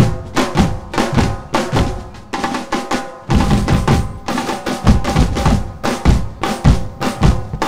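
A drum band of many drummers beating rows of stand-mounted drums and a large bass drum together in loud, rapid strokes.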